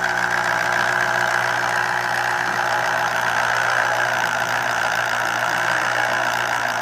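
Small electric citrus juicer's motor running steadily, spinning the reamer while an orange half is pressed down onto it: an even whir with a low hum underneath.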